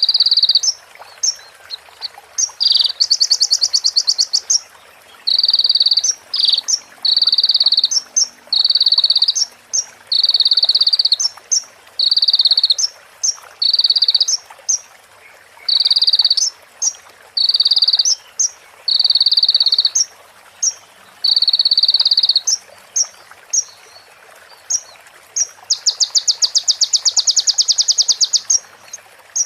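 A konin (sunbird) singing a mimicked song. A buzzy note repeats about every one and a half seconds, with short sharp high notes between. A fast rattling trill comes about three seconds in and again near the end, in the manner of a female prenjak's call.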